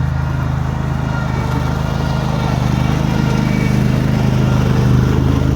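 A vehicle engine running steadily at low speed, a constant low hum with no change in pitch.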